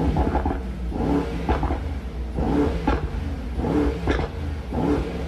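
Mercedes-AMG GT63 S's twin-turbo V8 exhaust at idle, with a steady low rumble, being blipped over and over in a string of short revs that rise and drop back.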